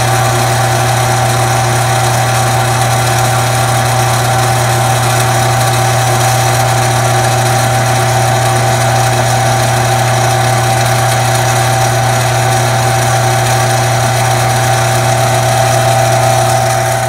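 Smithy 3-in-1 lathe running with a steady hum while a 1/64-inch micro drill bit is fed very slowly into a brass flare cap turning in the chuck.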